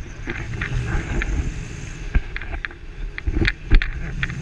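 Wind rushing over a camera microphone during a paraglider flight: a steady low rumble with scattered knocks, the loudest a little before the end.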